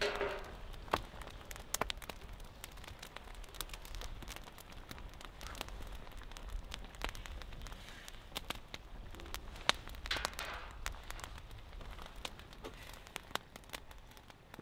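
Cooking fire crackling, with irregular sharp pops scattered throughout and two brief hissing swells, one at the start and one about ten seconds in.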